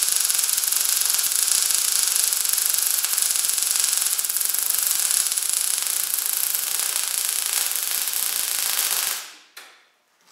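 MIG welding arc crackling steadily while running a vertical-up weld on steel plate, cutting off abruptly about nine seconds in when the trigger is released, with a faint knock near the end.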